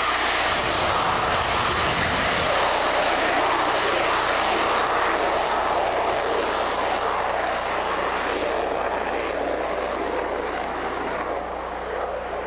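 A JASDF F-15 fighter's twin turbofan jet engines running loud and steady as the jet rolls along the runway on the ground. The noise eases slightly near the end.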